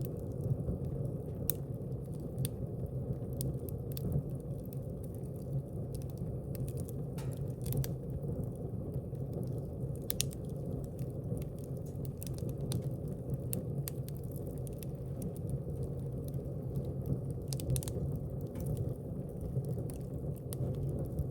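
Wood fire burning in a fireplace: a steady low rush of flames with irregular sharp crackles and pops from the burning logs.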